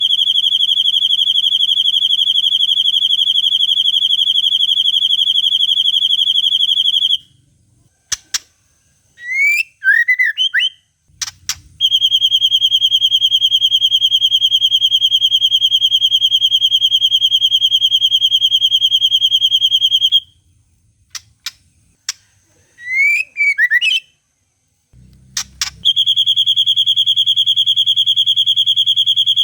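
White-rumped shama (murai batu) song: a long, very rapid one-pitch trill, the 'long cililin' phrase, held for about seven to eight seconds three times. Between the trills come short rising and falling chirps and a few sharp clicks.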